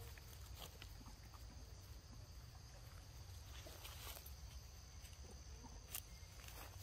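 Faint, scattered footsteps on dry leaves and grass, a few soft steps over a low steady background hum.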